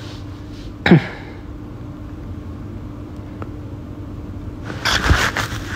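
Steady low background hum with a faint constant tone, broken about a second in by one short falling swoop of sound, and by brief rustling near the end.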